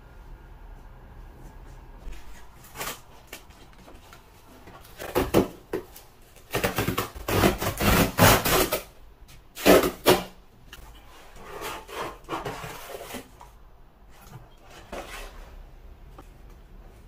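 Cardboard shipping box being torn open along its tear strip: several rough ripping pulls, loudest in the middle, followed by softer rustling of the flaps and packaging.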